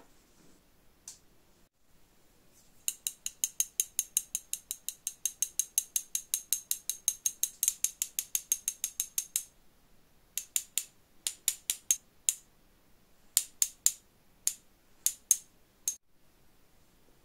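Hand-operated sifter dusting powdered sugar, its ratcheting mechanism clicking rapidly and evenly at about six clicks a second for several seconds. It pauses, then clicks again in short, irregular runs.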